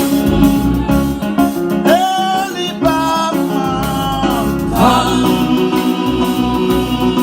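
Gospel music: a voice singing held, gliding notes over plucked-string instruments with a steady beat.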